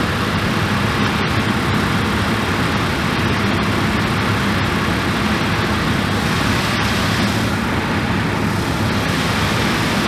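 Suburban SF-30FQ RV furnace blower running steadily with the access cover off, while the burner fails to light. The technician blames a bad high limit switch.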